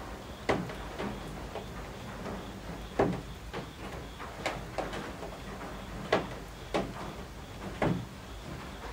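Steady rain with large drops falling from the eaves, landing as irregular sharp taps about once a second.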